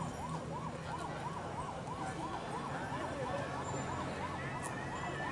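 A siren sounding in a fast yelp, its pitch rising and falling about three times a second.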